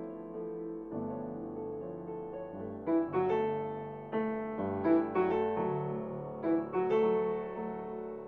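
Slow keyboard music: held chords, with a pair of notes struck roughly every two seconds, each fading away.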